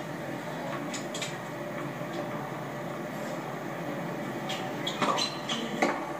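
Tennis match playing on a television: a steady arena crowd hush, with a few sharp racket-on-ball hits of a serve and rally in the second half.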